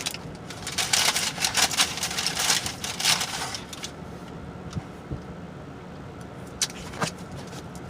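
Close-up mouth sounds of chewing a tater tot: a rapid run of wet smacking clicks for about three seconds, then a few scattered smacks.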